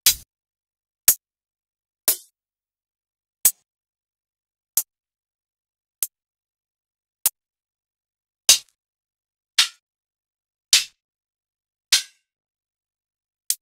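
Hi-hat samples from a hip-hop drum kit, previewed one after another: twelve short hits about a second apart. Some are cut short and others ring on with a longer tail.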